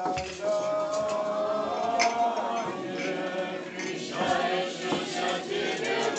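A group of children and women singing together as a choir, holding long, steady notes.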